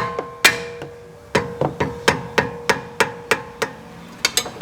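Repeated sharp metal-on-metal strikes, about a dozen at two to three a second, each leaving a short ringing tone: a hammer driving a wrench to break loose a 19 mm caliper bracket bolt.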